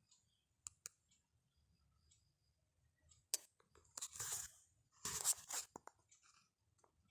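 Handling noise from a small HDMI adapter and its packaging: a few light clicks, a sharper click a little past three seconds, then two short bursts of crinkly rustling about four and five seconds in.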